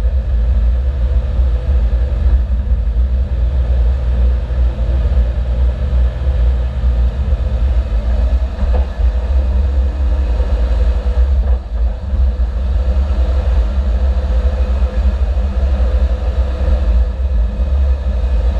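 Suzuki Jimny on the move: a steady, heavy rumble of engine and road noise. A lower hum in it drops away about eight seconds in.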